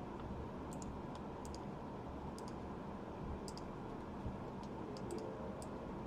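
Baseball trading cards being handled and flipped through, giving scattered light clicks and ticks over a steady low background.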